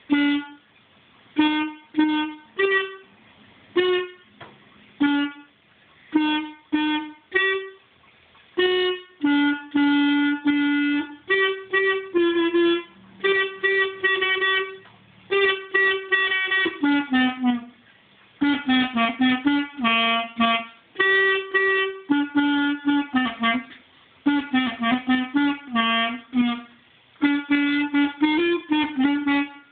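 A clarinet played by a boy reading from sheet music. For the first several seconds it sounds short, separate notes with gaps between them, then moves into longer held notes and phrases broken by brief pauses.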